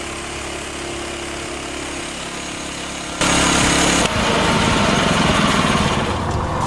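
Loud, steady machinery noise of an engine or power tool running, stepping up sharply in loudness about three seconds in.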